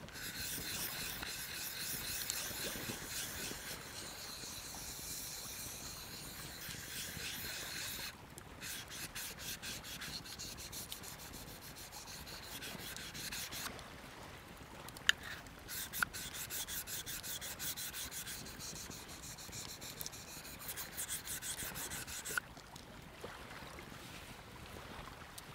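Puukko knife blade being sharpened on a round hand-held whetstone puck: a steady scraping at first, then quick short strokes. A brief break with a couple of sharp clicks comes about halfway, then more strokes, which stop a few seconds before the end.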